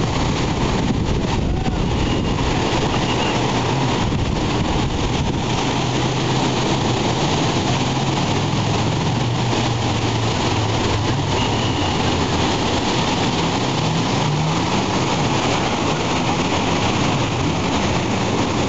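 Steady wash of surf breaking on the beach, with a motorboat engine running underneath for much of the time, its pitch rising a little before it fades.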